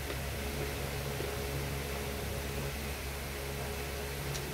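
Steady low hum and hiss at an even level, with a couple of faint clicks near the end.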